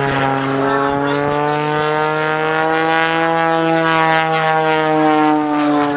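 Piston engine and propeller of an aerobatic stunt plane droning steadily through a maneuver. The pitch rises slightly and then falls a little near the end.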